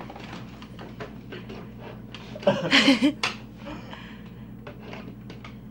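Pie Face party game's crank handle clicking as it is turned, one notch after another, with the spring-loaded arm yet to fire. About halfway through, a brief burst of laughter breaks in.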